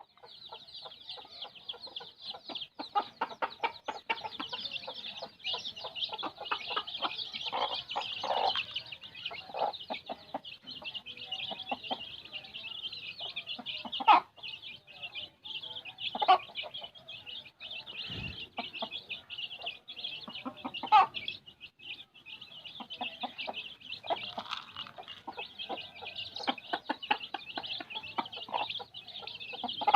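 A brood of kampung chicken chicks peeping continuously in a dense high chorus, with a few louder, lower clucks from a chicken standing out now and then.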